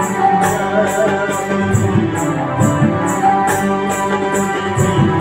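Electronic keyboard music: a sustained melody over the keyboard's built-in rhythm accompaniment, with a high percussion tick about twice a second.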